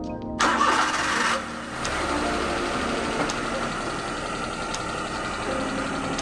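Perodua Kancil's engine running steadily, with a louder rush of noise lasting about a second shortly after the start.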